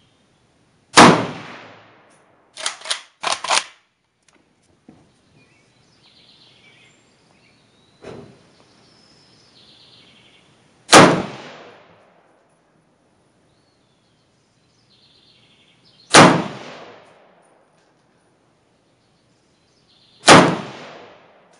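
Four loud rifle shots fired a few seconds apart, each dying away over about a second, with a fainter shot between the first and second. Shortly after the first shot come three short metallic clinks.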